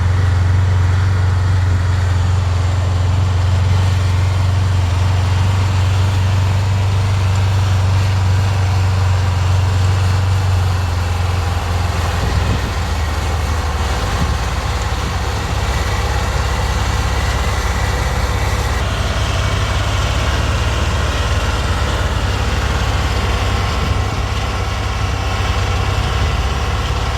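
Self-propelled swather's engine running steadily with a strong low drone, its pitch shifting slightly about halfway through.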